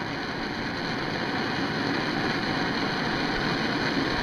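MAP gas torch burning with a steady hiss, its flame heating a leaf spring eye to loosen the molded-in bushing.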